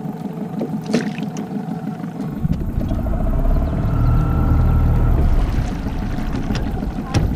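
Honda 8 hp twin-cylinder four-stroke outboard running low, then picking up about two seconds in as the boat gets under way, with water churning along the aluminium hull. Two sharp knocks, one about a second in and one near the end.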